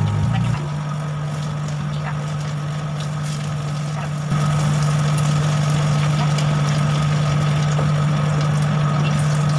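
Vegetable pancakes frying in shallow oil in a skillet, with faint crackles, over a steady low mechanical hum that is the loudest sound and steps up in level about four seconds in.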